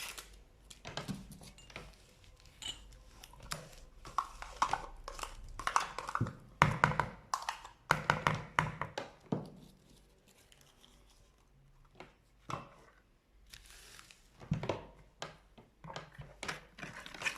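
A spoon knocking and scraping against a yogurt pot and a mixing bowl as the yogurt is scooped into cake batter, in irregular bursts of clicks and knocks.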